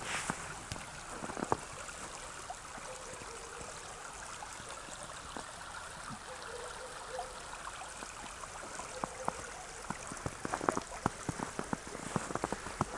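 Small brook flowing steadily with a soft trickling, gurgling rush of water. A run of sharp clicks comes in near the end.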